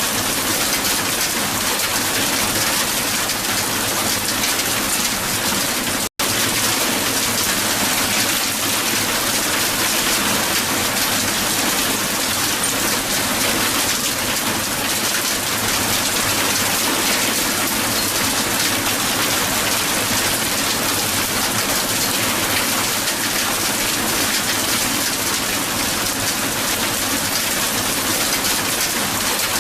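Heavy hail falling on the ground, a dense steady patter of small impacts. The sound cuts out for an instant about six seconds in, then goes straight on.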